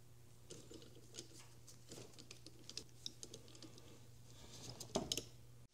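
Light metal clicks and taps of a socket, extension bar and ratchet being handled and snapped together, with the loudest clicks near the end. A steady low hum underneath.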